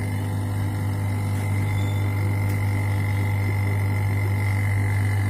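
Electric refrigeration vacuum pump running steadily with a low hum, evacuating the nitrogen and air from a window air conditioner's refrigerant circuit.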